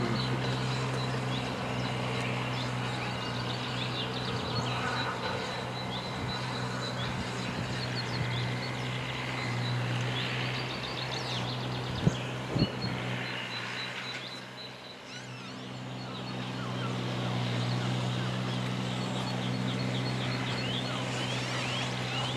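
Rebuilt Bulleid Battle of Britain class Pacific steam locomotive working under steam, a steady low sound of the engine and its exhaust, with birds chirping throughout. Two sharp clicks come about halfway through.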